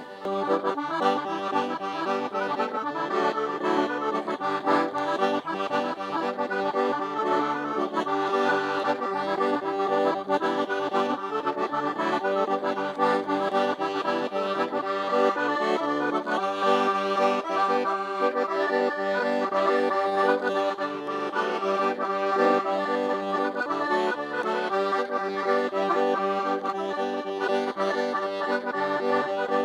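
Accordion-led zydeco music playing continuously.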